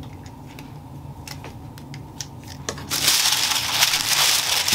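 A large sheet of thin tracing paper rustling and crinkling loudly as it is lifted and handled, starting about three seconds in. Before that there are a few faint light ticks of the paper being touched.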